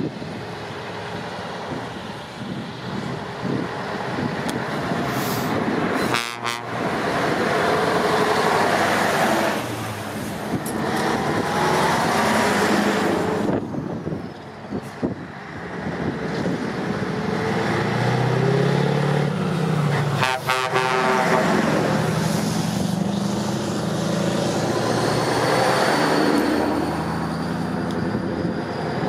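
Classic Scania V8 diesel trucks running, with air horns tooting on and off over the engine noise.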